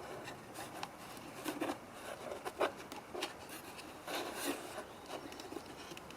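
Faint handling sounds of a new gas cap gasket being fitted into its cap: scattered small clicks and short bursts of rubbing.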